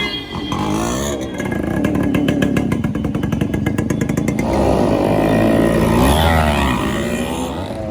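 Modified Yamaha RX100's two-stroke single-cylinder engine running, with a rapid even popping beat at low revs. From about halfway in it is revved up and down in a few rising and falling blips.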